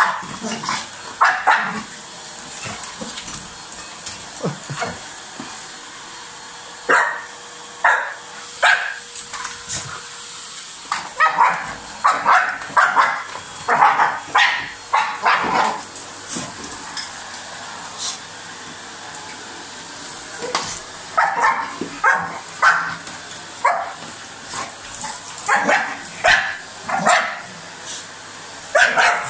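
A dog barking in repeated flurries at a vacuum cleaner that it is attacking, with quieter pauses a few seconds in and again past the middle.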